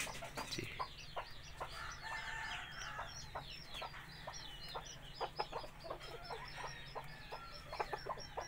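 Chickens clucking in short calls, over a steady string of high peeping calls repeating about three times a second.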